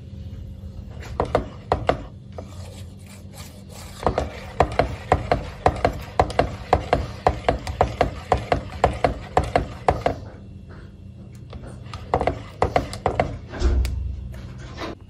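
Wire whisk beating a thick cream mixture in a nonstick pot, the whisk knocking and scraping against the pot's sides and bottom in quick regular strokes, about three a second. There are a few looser strokes near the start and near the end.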